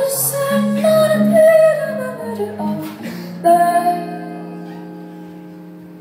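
A woman singing long held notes with a wavering pitch over guitar chords; after a last sung note a few seconds in, the music fades as the final chord rings out.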